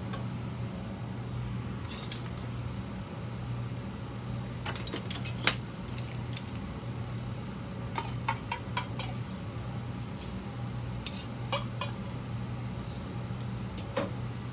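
Light clinks and taps of metal utensils against dishes, in several short clusters, over a steady low hum.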